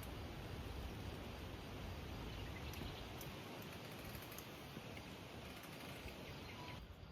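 Steady outdoor background rush with a low rumble, and a few small clicks and taps about three to four seconds in. The rush drops suddenly quieter near the end.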